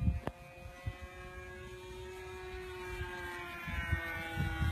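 Radio-controlled model Tucano plane's motor and propeller, a steady pitched whine from overhead that grows louder near the end as the plane comes closer. Low rumbling thumps sound underneath, with a sharp click about a third of a second in.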